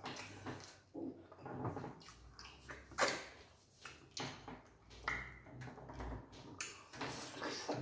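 Close-miked eating sounds: wet chewing and lip smacking as two people eat starch, meat and okra-banga soup by hand, with squelches of fingers in the slimy okra soup. A sharp wet smack stands out about three seconds in.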